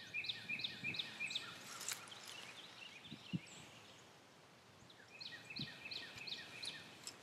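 Wild birds singing: a quick series of short repeated chirps at the start and another about five seconds in, with a soft thump around the middle.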